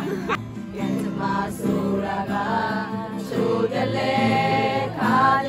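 A group of voices singing a slow song together, holding long notes over acoustic guitar accompaniment.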